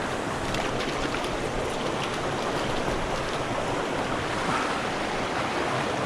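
Small mountain stream rushing steadily, an even hiss of flowing water.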